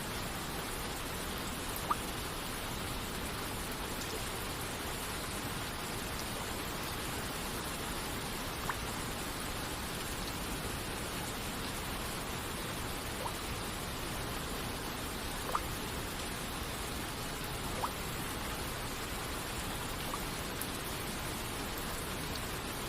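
Steady rush of rain and falling water, with single water droplets plinking now and then, about six times.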